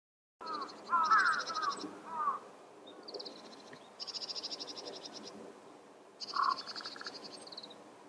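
Wild birds calling: short, harsh, swooping calls and several bursts of fast, high, buzzy trills, each burst about a second long, over a low steady hum. The sound cuts in suddenly about half a second in.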